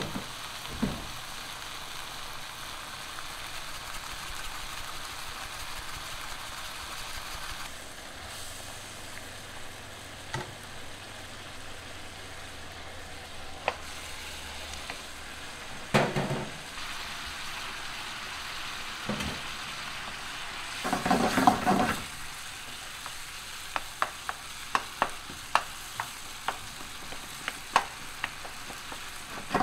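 Steady frying sizzle from a pan in a restaurant kitchen while sauce is being made, with a sharp utensil knock about halfway through, a brief scraping stir a few seconds later, and a run of quick clinks near the end.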